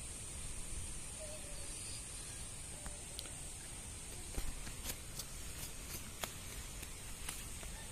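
A freshly caught fish being unhooked and flopping on grass: scattered light taps and rustles from about halfway, over a steady high hiss and a low rumble.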